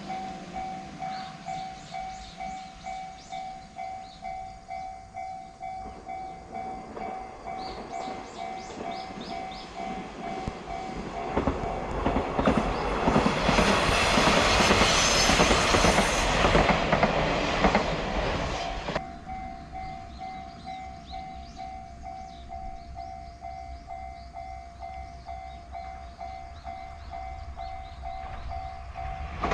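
KiHa 147 diesel railcar running past on the line, swelling to a loud rumble for about six seconds in the middle and then fading. A steady, rapidly repeating two-tone ding sounds before and after it.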